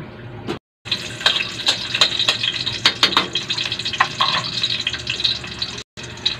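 Chopped garlic sizzling in hot cooking oil in a steel wok: a dense crackle full of small pops, broken by two brief gaps of silence.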